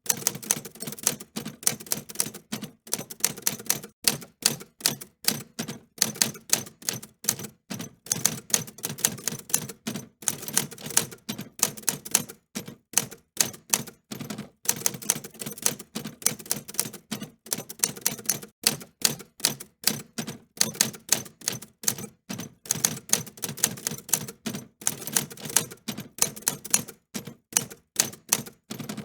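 Typewriter keys being struck in quick, irregular runs of sharp clacks, several a second, with brief pauses between runs.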